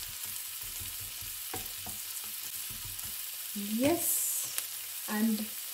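Diced onions sizzling steadily in melted butter in a frying pan, with a few taps and scrapes of a plastic spatula stirring them in the first two seconds.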